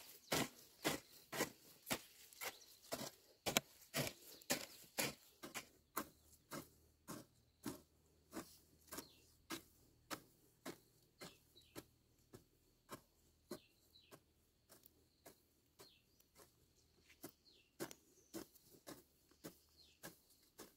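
Footsteps at a steady walking pace, about two to three a second, sharp on each step and fading gradually, with faint bird chirps in the second half.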